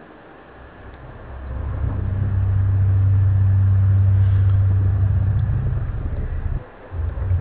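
A loud, deep, steady droning hum that swells in over the first two seconds and holds, cuts out briefly near the end, then comes back. This is the kind of unexplained low rumble passed around as 'strange sounds'.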